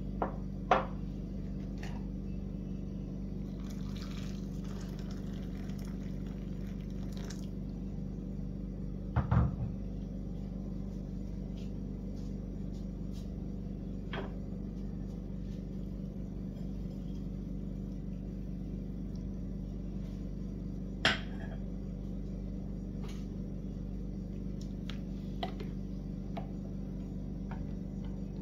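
Water poured into a glass mug of stuffing mixture for a few seconds, starting about 4 seconds in, over a steady low hum. A few sharp knocks of glass and utensils are heard, the loudest near the start, about 9 seconds in and about 21 seconds in. Faint spoon clinks against the glass come near the end.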